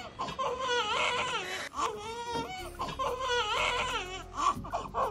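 Newborn baby crying: long, wavering wails with short breaths between them, repeated several times.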